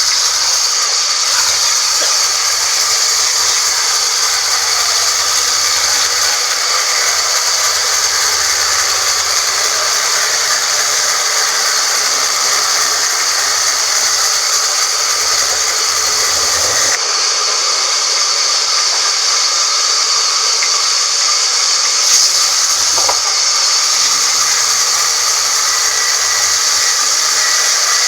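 Band sawmill running steadily as one loud, even noise, shifting slightly about 17 seconds in.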